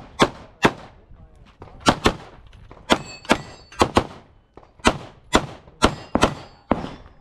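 Glock 45 9 mm pistol fired in quick pairs, about a dozen shots in all, each followed by a short echo.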